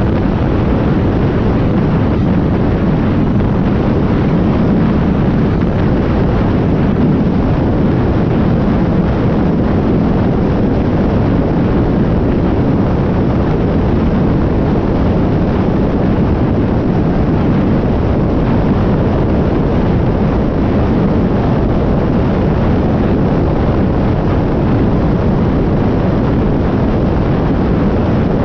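Side-by-side UTV driving at a steady pace on a sandy dirt road: engine and tyre noise mixed with wind on the microphone, loud and even.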